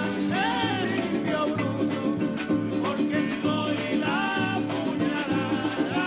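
Live Venezuelan folk music: a man singing over a wooden drum beaten with a padded stick, a strummed small guitar and a steady bass line.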